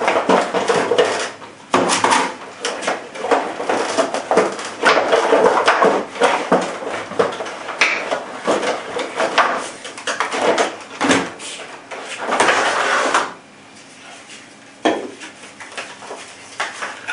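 Packaging and parts being handled during unboxing: irregular rustling and crinkling with knocks and clatter as the airsoft gun is taken out of its box.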